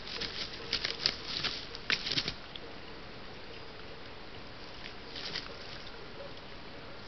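Twelve-point red deer stag wallowing in mud: a cluster of wet slaps and squelches over the first two seconds and a shorter one about five seconds in, over a steady hiss.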